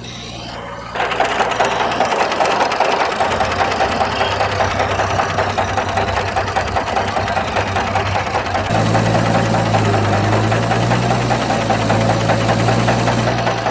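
A motor running with a fast, even clatter, starting about a second in; a low hum joins it about two-thirds of the way through.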